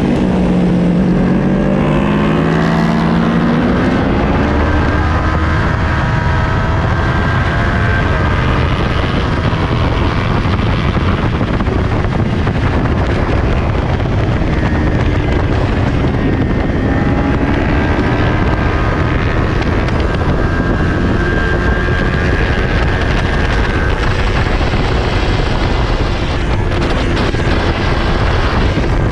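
2020 Kawasaki Ninja 400's parallel-twin engine running hard at racing speed, heard onboard under heavy wind noise. The revs climb in the first few seconds as the bike accelerates out of a corner, then climb again partway through.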